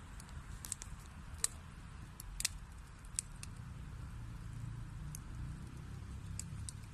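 Wood fire burning in a fireplace: scattered sharp crackles and pops of the burning logs over a low steady rumble of the flames.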